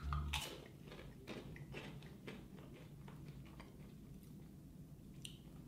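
Faint crunching of a Pringles potato chip being bitten and chewed: a string of small, sharp crackles, loudest in the first half-second and thinning out after that.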